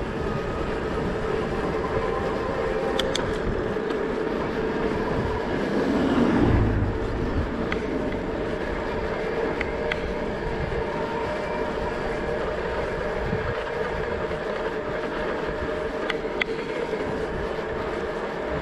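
Steady riding noise from a moving bike: wind and road rumble with a faint steady hum and a few light clicks, swelling briefly about six seconds in.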